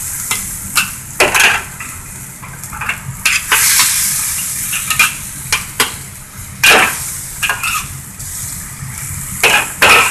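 Chicken and vegetables sizzling in a wok while a metal wok spatula stirs them, scraping and knocking against the wok. The hiss is steady, broken by scattered scrapes; the loudest come about two-thirds of the way in and near the end.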